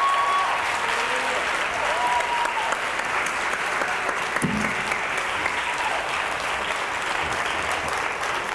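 Audience applauding steadily at the end of a lecture, with a few whoops from the crowd in the first couple of seconds.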